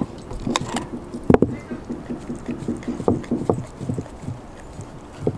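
A 10-month-old Belgian Malinois gnawing and chewing a raw beef rib bone, with irregular short clicks and knocks of teeth on bone and meat. The loudest, a sharp crunch, comes about a second and a half in.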